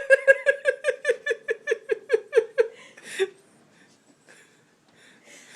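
A burst of rhythmic laughter, a quick run of about six pitched 'ha' pulses a second lasting nearly three seconds, then it stops.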